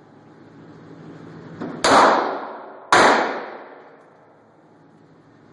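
Two pistol shots from a Smith & Wesson M&P 40 in .40 S&W, a little over a second apart, each ringing out in a long echoing tail.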